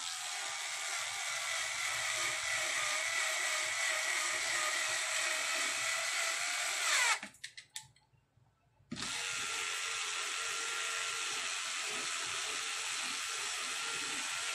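Cordless electric screwdriver driving screws into an amplifier's metal top cover in two long runs of several seconds each, with a pause of about a second and a half around seven seconds in. The motor's steady whine drops in pitch as the first run stops.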